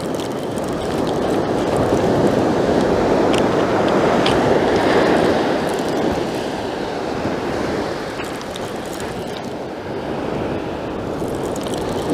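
North Sea surf washing onto the beach, a steady rushing noise that swells over the first few seconds and eases off after about eight.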